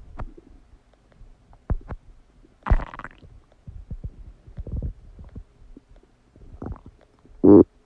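Human stomach gurgling while digesting a meal: scattered small pops and short gurgles, a longer gurgle about three seconds in, and a loud, brief, pitched growl near the end.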